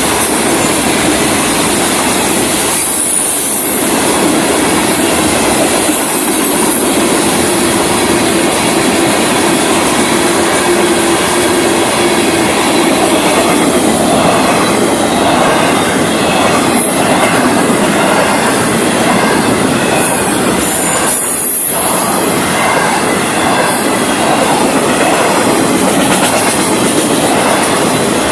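Freight cars of a Florida East Coast Railway train rolling past close by: the steady, loud rumble and clatter of steel wheels on the rails, with a faint high wheel squeal now and then.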